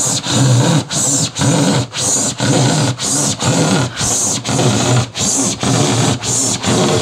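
Handsaw cutting through foil-faced PIR insulated plasterboard in steady back-and-forth strokes, about two a second.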